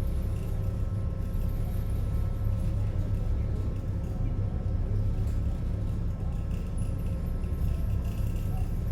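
Steady low drone of a passenger ferry's engines heard from on board, with a faint steady hum above it.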